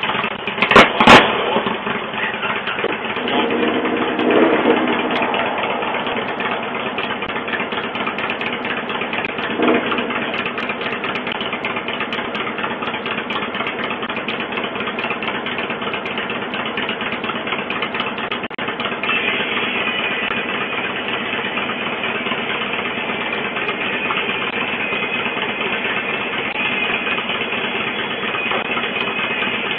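Motorcycle engines running at idle, heard through a doorbell camera's microphone, with a few sharp loud knocks about a second in.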